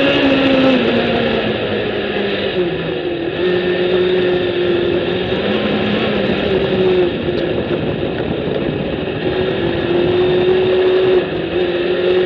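Sand rail's Suzuki Hayabusa inline-four engine running under way, its revs dropping and climbing several times with throttle and gear changes, over steady wind and tyre rush.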